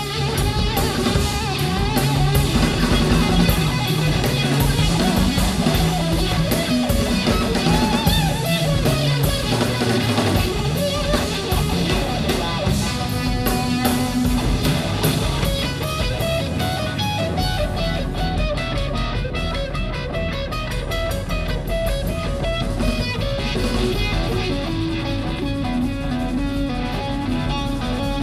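A rock band playing live in a concert hall, recorded from the crowd, in an instrumental passage: electric guitar over a drum kit, with cymbals throughout. A sustained low bass note comes in about two-thirds of the way through.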